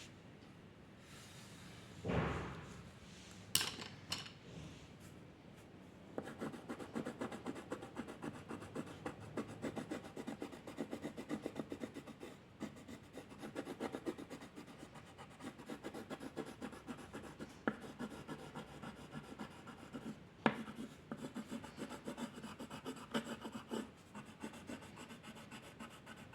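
Pencil or crayon scratching on paper in quick back-and-forth shading strokes, with a few sharper taps along the way.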